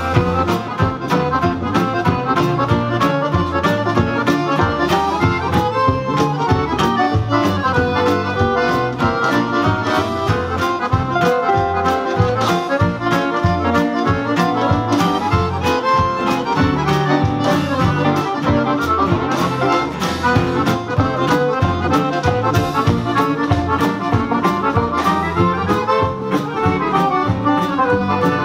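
Live accordion band playing a sving, a Norwegian old-time dance tune: accordions lead the melody over guitar, upright bass and drums, with a steady dance beat.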